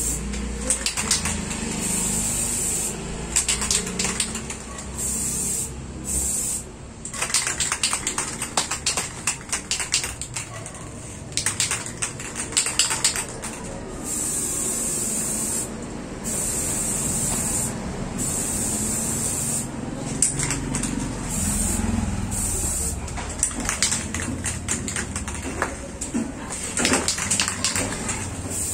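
Aerosol spray-paint can hissing in on-off bursts of a few seconds each, with short pauses between, while a color coat is sprayed on. Clusters of sharp clicks come in the middle and again near the end.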